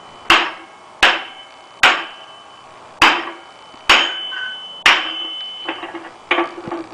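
Six heavy sledgehammer blows, about one a second, on the bar handle of a hub puller, each with a short metallic ring. The blows drive the puller's screw to pull the hub and brake drum off a Willys Jeep rear axle. Lighter clatter follows near the end as the handle is moved round.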